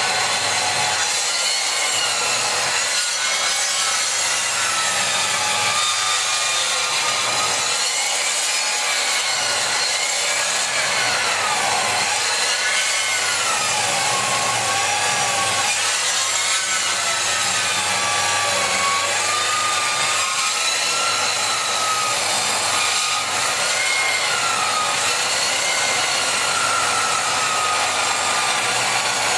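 Parkside 2000 W sliding cross-cut mitre saw cutting wood: a steady, loud saw noise with a whine that rises and falls as the blade works through the cut.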